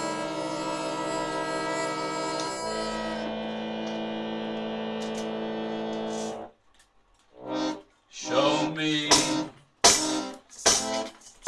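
Electric keyboard holding sustained organ-like chords, shifting to a new chord about two and a half seconds in and stopping sharply about six seconds in. After a brief pause, louder, uneven music with a voice and sharp percussive strokes starts.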